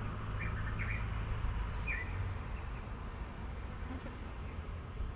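A few short bird chirps in the first two seconds or so, over a steady low rumble of outdoor background noise.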